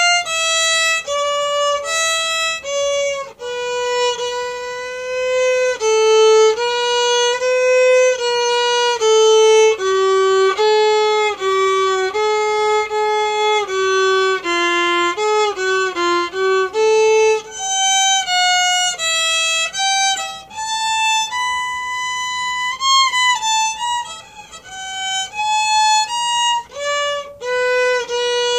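Unaccompanied violin played with the bow: a slow melody of single held notes that moves down into the low register through the middle, with a quick run of short notes past the halfway point, then climbs back higher.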